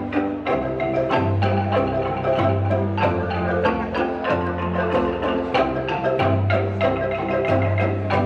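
Kolintang ensemble, the Minahasan wooden xylophones, playing a hymn tune in quick struck notes over steady bass notes that change every half second or so.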